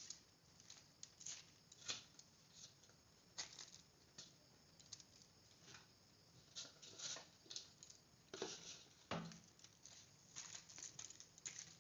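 Faint rustling and crinkling of butter paper in a metal tray as lumps of peanut barfi mixture are set down on it and pressed by hand, with scattered soft taps.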